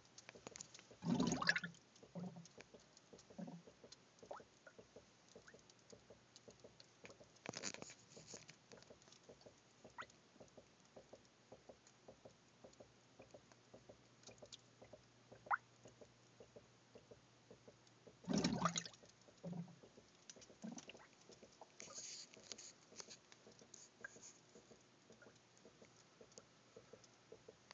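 Gas bubbling out of a tube submerged in a plastic pitcher of liquid, the blow-off from a fermenting vessel. Irregular small ticks and pops, broken by a few louder gurgles, the loudest about a second in and again about two-thirds of the way through.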